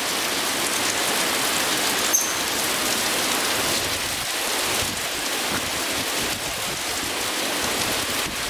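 Heavy rain pouring down steadily, with one brief click about two seconds in.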